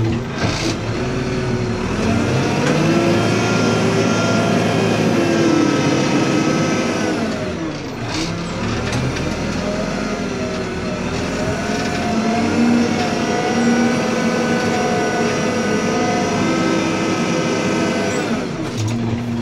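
Backhoe loader's diesel engine running under load as the machine drives with a full loader bucket of soil; its pitch drops and rises again twice as the engine slows and speeds back up.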